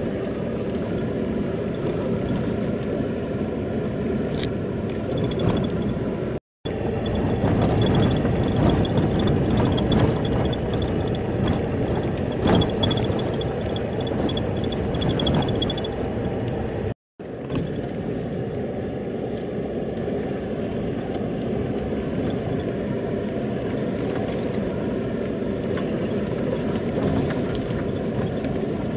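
Vehicle driving on a dirt road, heard from inside the cab: steady engine and tyre rumble. The sound drops out briefly twice, about six and seventeen seconds in, and is louder between the two gaps.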